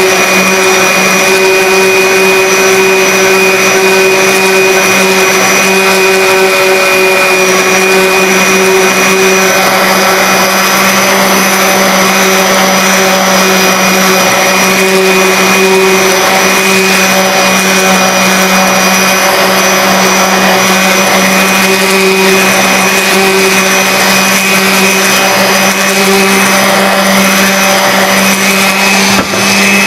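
DeWalt random orbital sander running steadily at full speed, its pad sanding weathered teak toerail, with a brief dip near the end.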